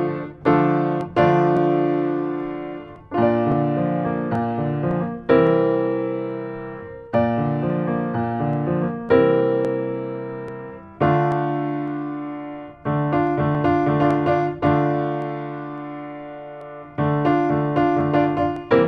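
Solo piano music: chords struck about every two seconds, each left to fade, with a few quicker notes near the start and the end.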